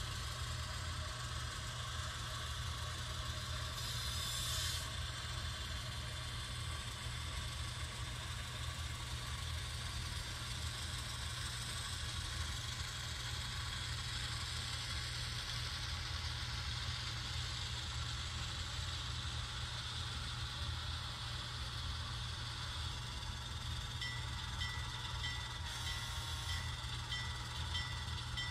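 Sound system of an HO scale Rapido 44-ton switcher model playing a running diesel locomotive through the model's small speaker: a steady low engine rumble with hiss. A brief hiss comes about four seconds in, and near the end a high chime starts repeating about twice a second.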